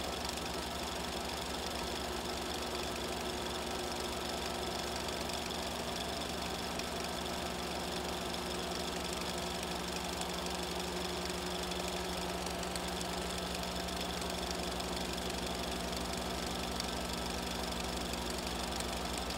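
Film projector running steadily: an unchanging mechanical whirr and clatter.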